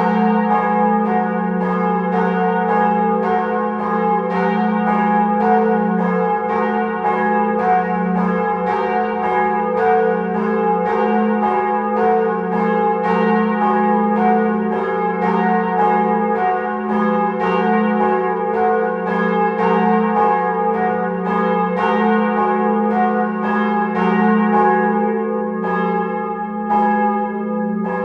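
Church bells ringing a continuous peal, with strikes about twice a second over a steady wash of long-ringing tones.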